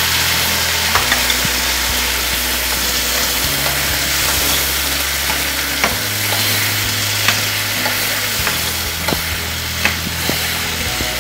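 Tomato puree and onion paste sizzling in hot oil in a non-stick frying pan, stirred with a metal spoon that clicks sharply against the pan half a dozen times.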